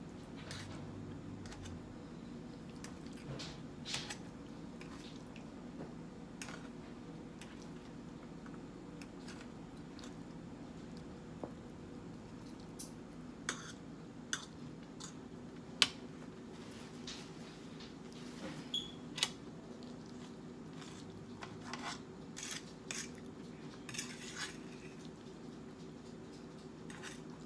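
Metal fork clinking and scraping against a metal serving platter while spaghetti is eaten from it: scattered sharp clicks, the loudest about sixteen seconds in, over a low steady hum.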